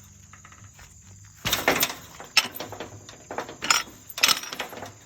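Gate latch being lifted and the gate worked open: a series of sharp clacks and rattles, starting about a second and a half in, with four louder knocks among them.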